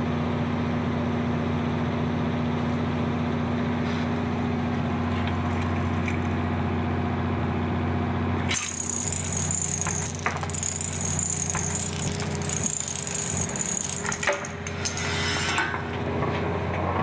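A steady low hum, then about eight and a half seconds in a Rube Goldberg machine sets off: a toy pickup truck rolls into a row of dominoes. Small clicks, clatters and knocks follow over a high rolling hiss as the chain reaction runs on.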